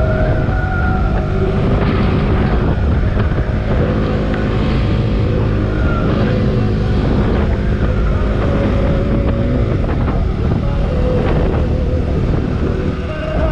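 Motorcycle engine running while riding, with steady wind noise on the microphone and a faint engine pitch that shifts slowly up and down.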